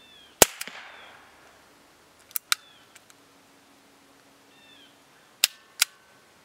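Suppressed Nagant M1895 revolver firing through an AAC TiRant 9 suppressor: a sharp, muffled shot about half a second in, the loudest sound. It is followed by two pairs of quieter sharp cracks, around two and a half seconds and again around five and a half seconds.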